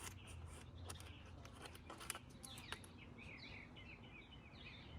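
Birds chirping faintly in quick, short calls, busiest in the second half, with a few light clicks.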